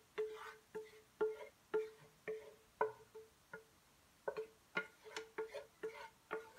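A wooden spatula knocking and scraping against a pan while cheese sauce and pasta are scraped out of it. The knocks come about twice a second, each leaving a short ring, and quicken in the second half.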